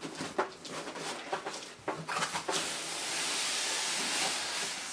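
Cardboard box handled with light rustles and knocks, then about halfway through a steady scraping hiss for roughly two seconds as the outer cardboard shipping box slides up off the packing inside.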